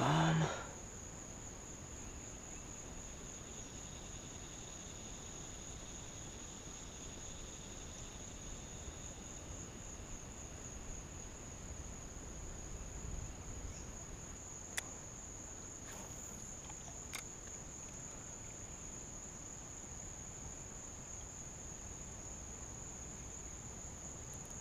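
Insects trilling in one steady, high-pitched, finely pulsing note, with a couple of faint clicks past the middle.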